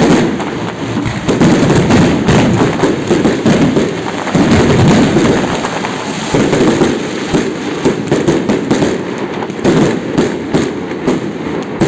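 Aerial fireworks going off in a dense barrage: many shells bursting close together, with low booms under a continuous crackle.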